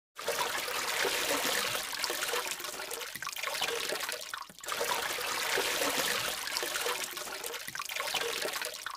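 Steady rushing noise like running or flushing water, dipping briefly a few times, most deeply about halfway through.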